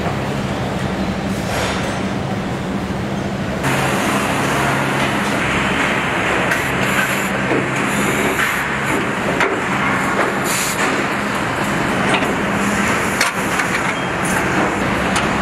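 Assembly-plant floor noise: a steady low machine hum under a general din, which gets louder and busier about three and a half seconds in, with sharp metallic clicks and clanks of tools and parts on a truck frame scattered through the rest.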